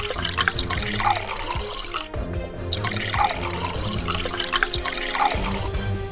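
Thin grey slurry pouring and dripping from a miniature bucket onto sand, over background music.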